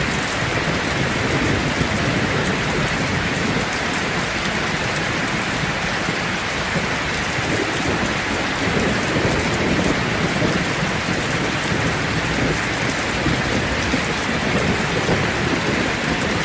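Rain falling steadily on a roof, an even, unbroken wash of sound.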